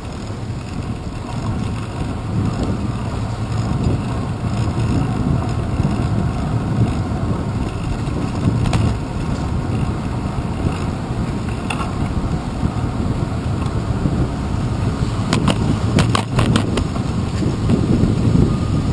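Steady low rumble of a bicycle rolling over a city street, heard through a handlebar-mounted camera. Late on comes a quick cluster of sharp rattling clicks.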